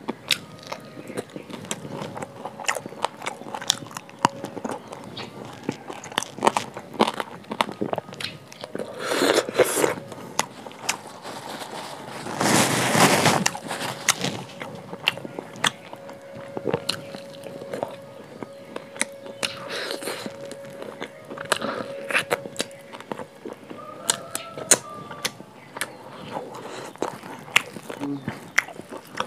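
Close-miked eating: irregular crunching, chewing and wet mouth clicks, with one louder, noisier stretch of about a second and a half some twelve seconds in. A faint steady hum sits underneath through the middle.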